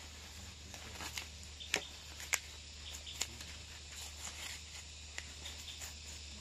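Scattered light crackles and ticks with a few sharp snaps, the two loudest a little under two seconds in and about half a second apart, over a low steady hum.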